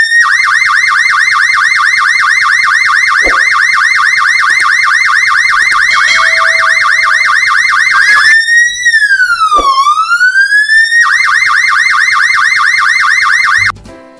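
Cartoon police-car siren sound effect, alternating between a rapid yelp and a slow rising-and-falling wail, then cutting off suddenly near the end.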